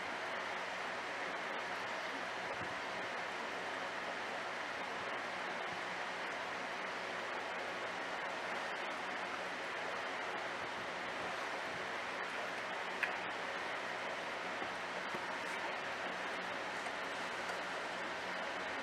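Steady rushing hiss of aquarium water flow with a low hum of running tank equipment, and one faint click about thirteen seconds in.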